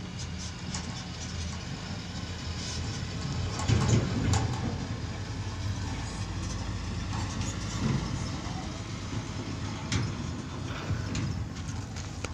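Heavy dump truck's diesel engine running as the truck drives slowly along a rough dirt road, a steady low rumble with occasional knocks and rattles, loudest about four seconds in.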